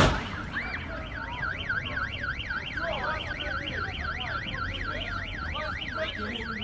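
A car hitting another car with a loud bang, then a car alarm goes off about a second later: a fast warbling siren tone that rises and falls about five times a second.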